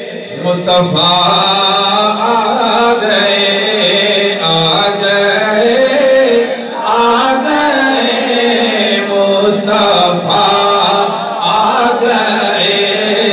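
A man's voice chanting a devotional Urdu salam into a microphone over a loudspeaker system, in long drawn-out melodic phrases. A faint steady high tone runs underneath.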